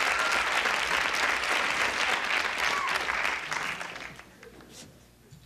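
Studio audience applauding, the clapping fading away about four seconds in.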